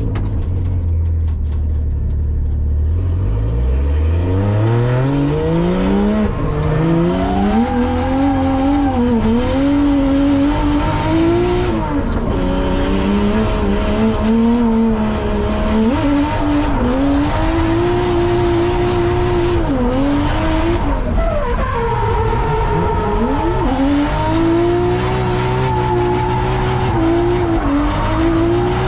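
Car engine revving hard on track. It climbs sharply in pitch about three seconds in, then keeps rising and falling with the throttle through a drift run, with tyres squealing.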